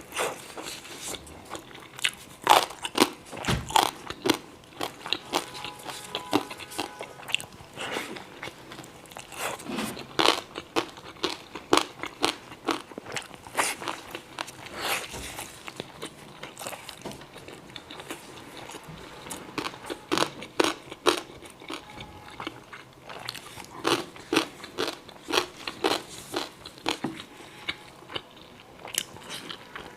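Close-miked eating: crisp, crunchy bites and chewing, with many sharp crackles at an uneven pace, typical of dried pickled radish being eaten alongside steamed dumplings.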